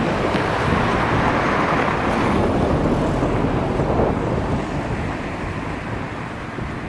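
A car driving close past over the level crossing, its tyre and engine noise fading away after about four seconds.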